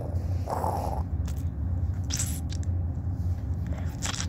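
Steady low hum with a few short soft noises over it.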